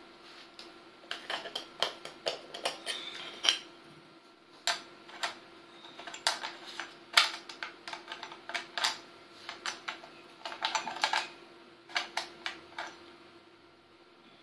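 Scattered sharp clicks and light clatter of a Canon DSLR camera body, its plastic body cap and a metal T-ring adapter being handled and fitted together, some clicks coming in quick little runs.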